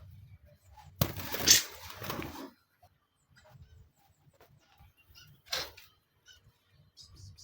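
A bird giving a loud, harsh call about a second in that lasts about a second and a half, then a shorter harsh call midway.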